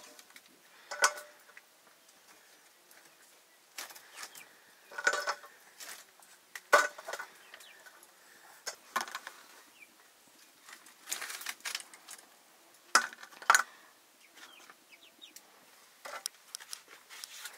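Chickens clucking in scattered short calls at irregular intervals, with a few sharper, louder ones.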